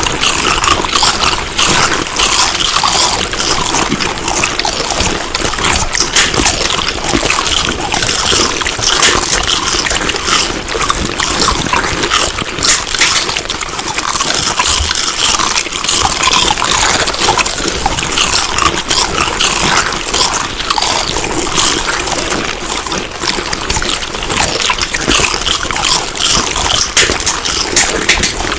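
Close-up chewing and eating sounds: continuous wet, crackling mouth noises made up of many small clicks.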